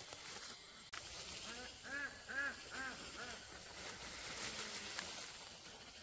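An animal calling in a quick run of about five short calls, starting a little under two seconds in, over faint outdoor background noise.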